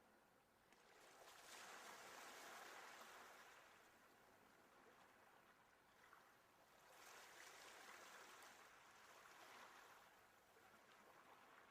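Faint wash of sea waves, a soft rushing that swells and fades twice.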